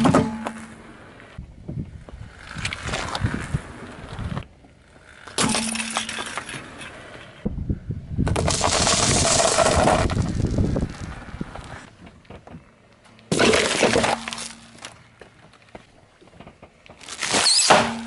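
A car tyre rolling slowly over small objects on asphalt and crushing them one after another: several separate bursts of crunching and crackling. The longest and loudest is a pile of M&M's candies being crushed, about halfway through.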